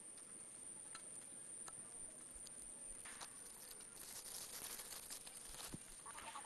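Faint rustling and scattered light clicks of a rope being wrapped and knotted around a tree trunk, a little louder in the second half.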